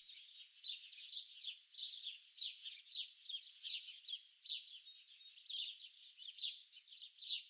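A chorus of many small birds singing and chirping at once: a dense, continuous stream of quick, high chirps and trills.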